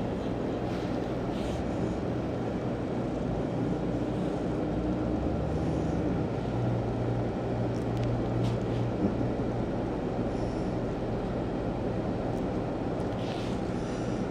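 Domestic cat purring right against the microphone: a steady low rumble, with a few faint rustles of fur.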